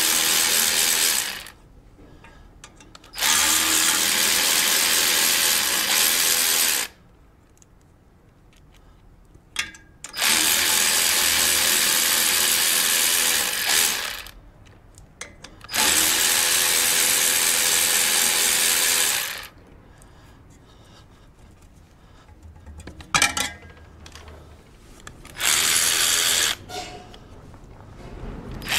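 Cordless power ratchet running in five bursts of one to four seconds each, spinning out the bolts that hold the engine's cooling fan, with a few light metal clicks in the quieter gaps between runs.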